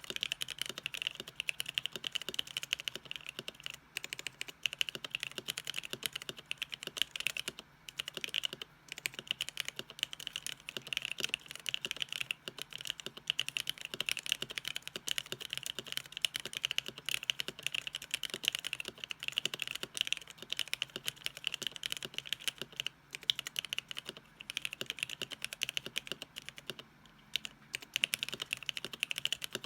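Fast, continuous typing on a mechanical keyboard: a dense, unbroken stream of keystroke clicks.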